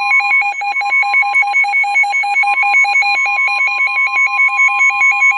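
The NOAA Weather Radio warning alarm tone, a loud steady tone of about 1050 Hz, sounding ahead of a severe thunderstorm warning. A second alarm beeps rapidly over it, about seven beeps a second.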